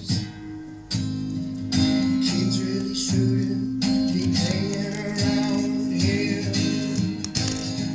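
Acoustic guitar strummed in chords while a young male singer sings his own song. The strumming is softer for about the first second, then fuller.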